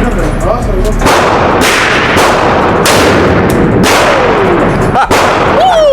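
Gunfire: several loud, sharp shots, roughly a second apart, each followed by a brief ringing tail. The heavy shots come from a .50 AE Desert Eagle pistol.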